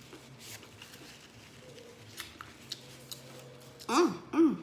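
A few faint clicks, then two short voiced hums near the end, each rising and falling in pitch, like "mm-mm".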